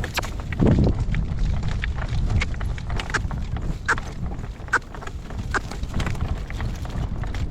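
Wind buffeting the microphone in a low rumble, loudest in a gust about a second in, over the sharp clops of a horse's hooves at a trot.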